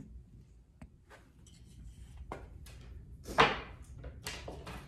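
A few light knocks and clatters of small wooden pieces being handled on a wooden workbench, the loudest about three and a half seconds in.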